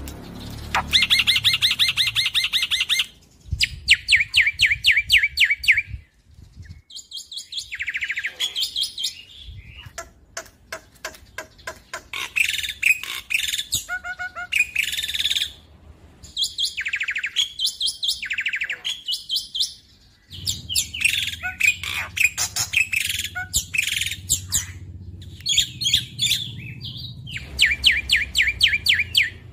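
Black-winged myna (jalak putih) singing in bursts of fast, rapidly repeated notes and harsh chattering phrases, with short pauses between bursts and a run of sharp clicking notes partway through.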